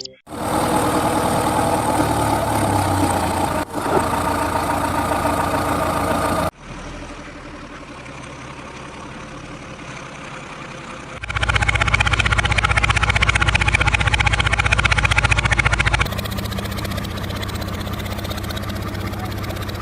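Heavy diesel engine running at a steady pace, heard in four separate stretches that change abruptly, about six, eleven and sixteen seconds in.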